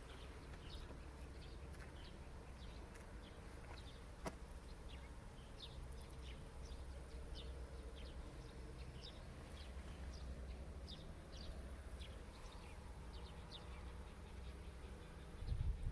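Faint outdoor ambience: small birds chirping in short, scattered high calls over a steady low rumble, with one sharp click about four seconds in.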